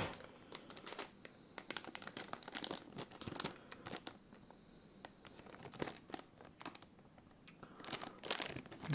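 Plastic accessory packaging crinkling and rustling in the hands, with scattered small clicks, as boxed motherboard accessories such as SATA cables are handled. The crinkling thins out in the middle and comes back louder near the end.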